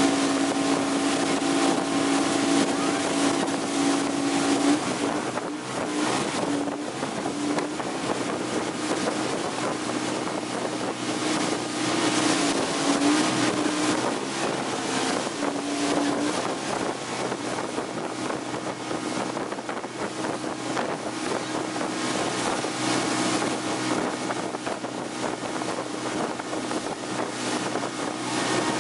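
Yamaha outboard motor running steadily at speed while towing an inflatable ride, with the rush of the wake and wind buffeting the microphone.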